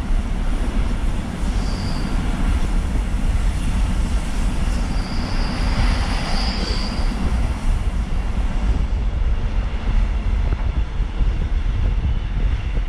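Rola rolling-motorway freight train running, heard from on board: a steady low rumble of wheels on rails, with a high wheel squeal briefly about two seconds in and again for a couple of seconds in the middle.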